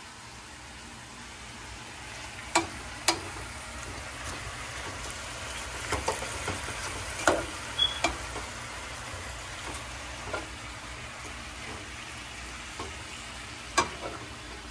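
Broken fried buñuelos sizzling in syrup in a nonstick skillet over a gas flame while a spoon stirs and tosses them, with a few sharp clinks of the spoon against the pan, the loudest near the start and one near the end.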